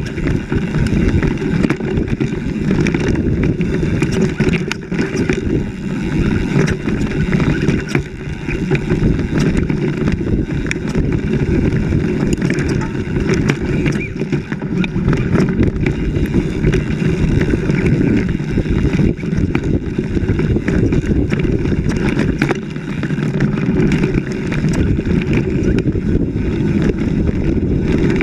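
Vehicle driving over a rough forest track, its running and heavy wind buffeting on the vehicle-mounted camera making a loud, steady low rumble, with frequent knocks and rattles from the jolting.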